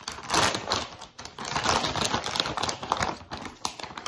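Plastic bag of shredded cheddar cheese crinkling and rustling as it is handled and a hand digs into it, a dense crackle with no pauses.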